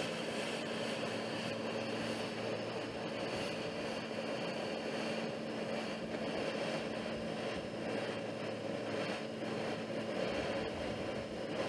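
Steady rushing hiss of vapor venting from a liquid-oxygen rocket test stand during propellant loading, over a low steady hum that weakens about seven seconds in.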